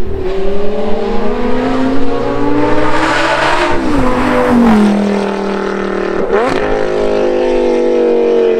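Lamborghini Gallardo's V10 engine, breathing through a Capristo and IPE hybrid exhaust, accelerating hard towards and past the camera. Its pitch climbs, then falls away as the car goes by. There is a short sharp crack about six seconds in.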